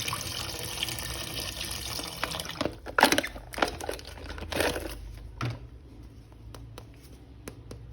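Water running from a tap as a plastic action figure is rinsed, then a few knocks and light clicks of handling as the running water fades away in the second half.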